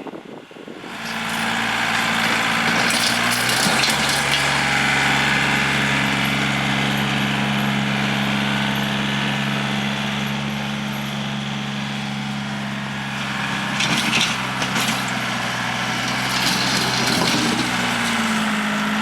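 Tractor engine running steadily as it pushes a snow plow into a dense drift, with a few short clanks and scrapes near the end.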